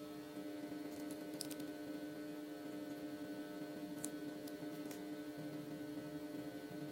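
Steady electrical hum, one strong tone with fainter overtones, broken by a few faint light clicks.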